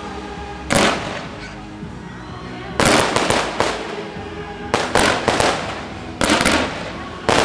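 Aerial fireworks going off: a series of sharp bangs about every one and a half to two seconds, one of them followed by a quick run of crackling reports.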